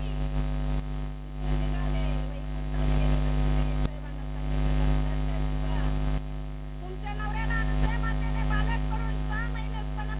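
Steady electrical mains hum, a low 50 Hz buzz with its overtones, with faint voices wavering in the background, a little more noticeable in the last few seconds.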